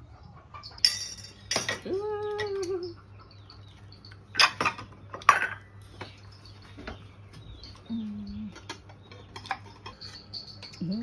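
Scattered sharp clinks and knocks of kitchenware being handled, with a short pitched call about two seconds in.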